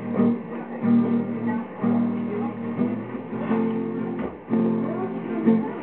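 Acoustic guitar strumming chords, with a new chord struck about once a second.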